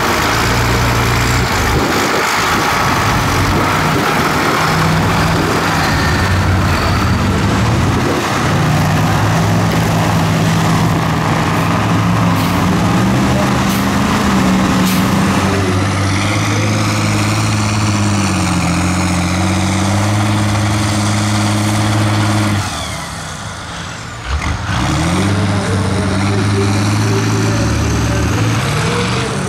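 Engines of modified off-road trucks revving and labouring as they churn through deep mud. The engine pitch rises and falls, and the sound drops briefly about two-thirds of the way through.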